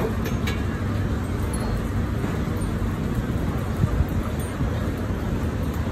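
Steady low rumble of road traffic in the street background, with a faint click or two at the very start.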